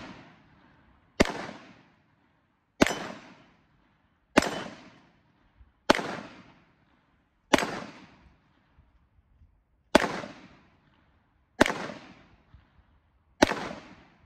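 Grand Power Stribog 9mm semi-automatic pistol fired in slow, single aimed shots: eight shots about one and a half seconds apart, with one longer pause about two-thirds of the way through. Each shot has a short echo trailing off after it.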